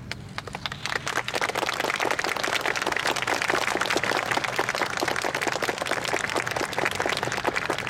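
Audience applauding, many hands clapping at once; it starts about half a second in, swells, and holds steady.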